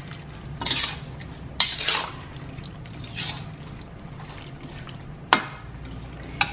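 Slotted metal spatula stirring shredded chicken through a thin sauce in a metal wok: wet swishing and sloshing, with a few sharp clinks of the spatula against the wok, the loudest about a second and a half in and again a little after five seconds.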